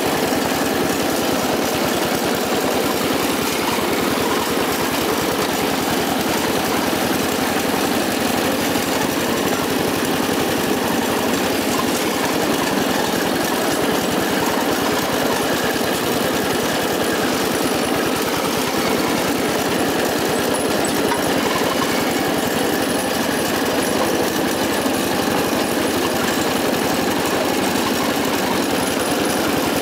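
Riding lawn tractor's small engine running steadily, heard close up from the seat.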